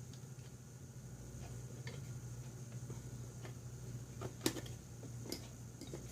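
A few sharp clicks and taps of a Kingston SSD being handled and fitted into the laptop's steel drive bracket, the loudest about four and a half seconds in, over a low steady hum.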